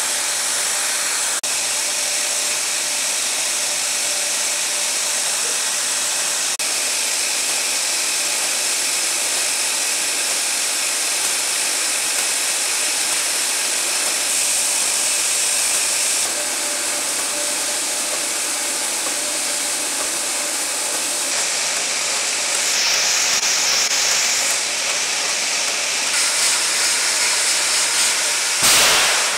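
Steady hiss and hum of an industrial sheet-cutting machine running, with a rotary blade slitting a moving sheet. The tone shifts a few times and there is a brief louder rush near the end.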